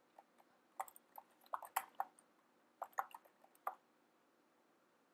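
Keystrokes on a computer keyboard: a few scattered clicks, then quicker bursts of typing, stopping a little before four seconds in.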